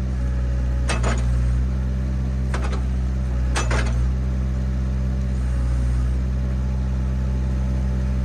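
Kubota mini excavator's diesel engine running steadily. Three or four sharp clanks come in the first four seconds.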